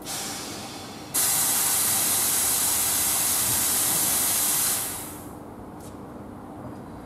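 Compressed air hissing out at the automatic coupler between two coupled Class 321 electric multiple units. A short softer hiss comes first, then about a second in a loud steady hiss holds for about three and a half seconds and fades away.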